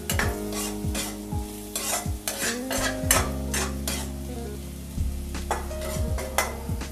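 Spatula stirring and scraping diced vegetables and masala around a wok (kadai) in repeated strokes, about two a second with a short lull past the middle, while the food sizzles as it fries.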